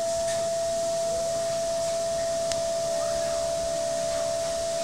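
DATRON CNC milling machine's high-speed spindle whining at one steady pitch, with the hiss of spray mist over the cut.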